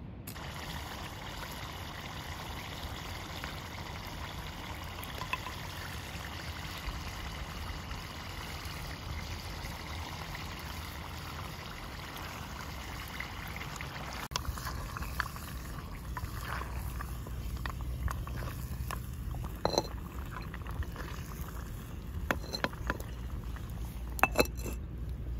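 Curry simmering in a clay handi pot over a wood fire: a steady bubbling sizzle. After about the middle the sound turns to the fire's low rumble with scattered crackles and clicks. Near the end come a few sharp knocks of clay on clay as the lid is set on the pot.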